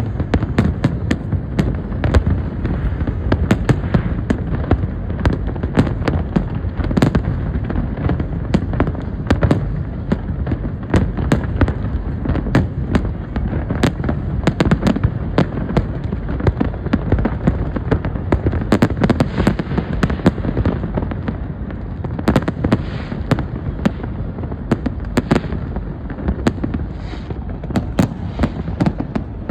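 New Year's fireworks going off continuously: many bangs and crackles in quick, overlapping succession over a steady low rumble.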